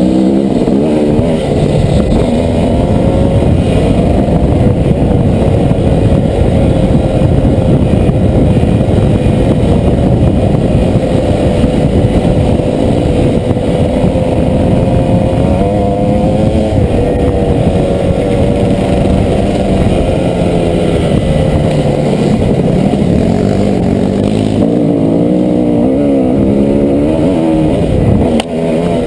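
Dirt bike engine running under load, heard from a helmet-mounted camera: a loud, steady engine note that rises and falls with the throttle. The revs change more quickly near the end, with a brief drop in loudness just before it stops.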